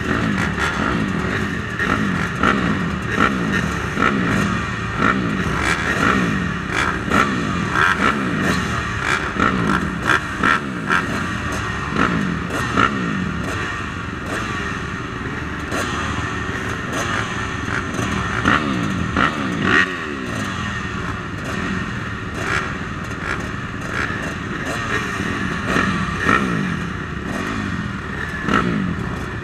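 Motocross bike engine revving hard and falling off over and over as it is ridden around a dirt track, the pitch climbing and dropping every second or two, with frequent sharp clattering knocks.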